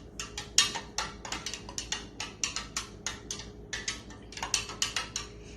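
A spoon clicking rapidly against the side of a container as a vinegar and dish soap mixture is stirred, about four or five taps a second, with a brief pause a little past halfway.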